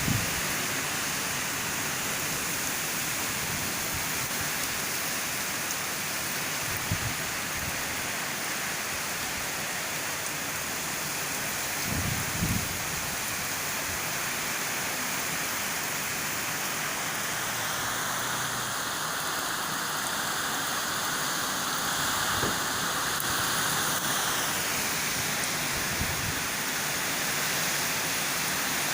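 Heavy rain and strong wind in a thunderstorm: a steady rushing hiss, with a few dull low thumps.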